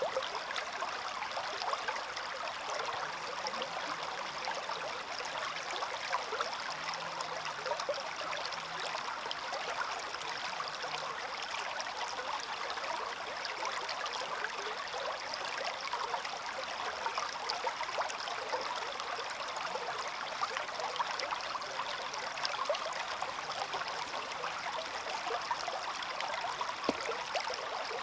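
A small stream running steadily, water babbling and trickling over stones.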